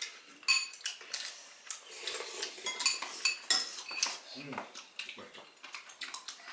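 Chopsticks and spoons clinking and tapping against ceramic bowls while eating, a scatter of sharp, short clinks, some with a brief ring.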